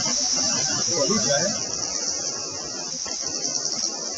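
Insects chirring in a steady, high-pitched chorus, with a brief voice in the background about a second in.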